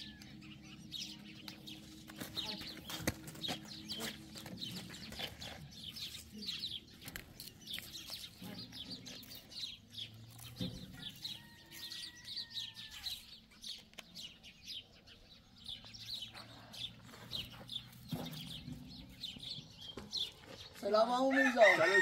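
Chickens clucking and a rooster crowing, with many small birds chirping all through. A drawn-out crow comes about halfway through, and a much louder crow near the end.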